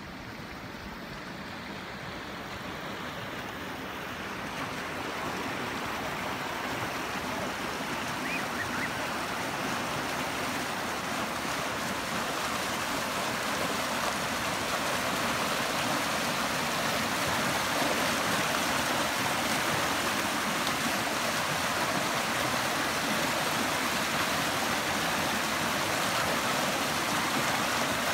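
River rapids: water rushing and churning white through a narrow chute between large rocks. The rush grows louder over the first fifteen seconds or so, then holds steady.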